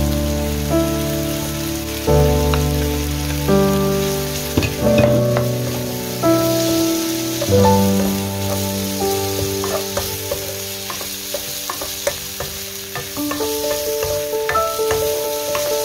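Beef tripe and carrot strips sizzling in a nonstick wok, with a wooden spatula stirring and scraping and scattered light clicks against the pan. Background music of slow sustained notes plays under it.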